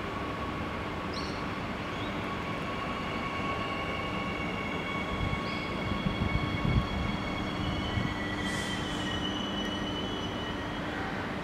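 Bombardier-built Adelaide Metro 4000-class electric train pulling into the platform and slowing to a stop: rolling noise with a steady electric whine and wheel squeal, a few low thumps about six to seven seconds in, the whine's pitch stepping down at about eight seconds, and a short hiss just after.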